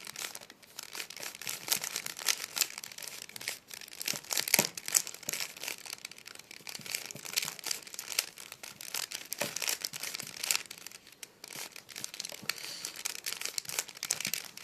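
Plastic Rubik's cube being turned in the hands: quick, irregular clicking and rattling of the layers, with a few louder clacks.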